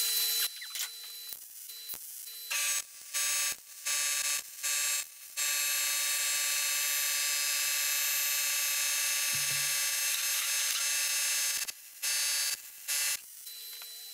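MIG welder welding steel floor panel in bursts: several short tacks of about half a second and one longer weld of about six seconds in the middle, each a steady buzz that starts and stops abruptly.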